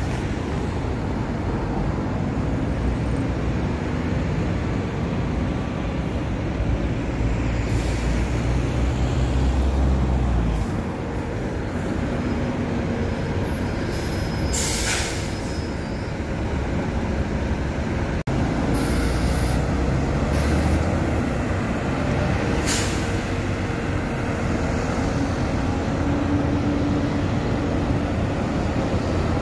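Several buses running and manoeuvring with a steady low engine rumble. Air brakes hiss sharply about halfway through and again, more briefly, later on.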